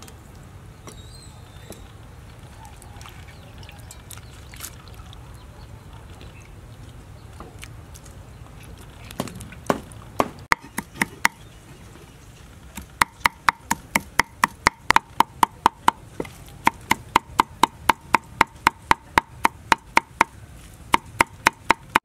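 Large kitchen knife chopping soaked red chillies on a wooden chopping block: a few scattered knocks about nine seconds in, then fast, even chopping at about four strokes a second, each knock with a slight ring. Before that, only faint handling sounds of chillies in a bowl of water.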